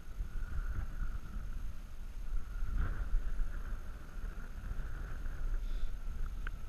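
Airplane flying overhead: a steady engine drone with a low rumble, weakening near the end.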